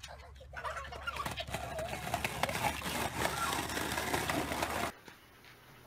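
Skateboard wheels rolling over a concrete sidewalk with a bulldog riding the board, a rough rumbling noise with many small clicks and a wavering pitched sound over it. It cuts off suddenly about five seconds in.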